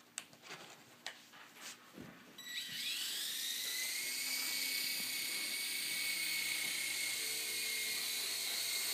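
Electric motor and rotors of an Air Hogs Fly Crane toy RC helicopter spinning up about two and a half seconds in, the whine rising quickly and then holding at a steady high pitch. A few light clicks come before it.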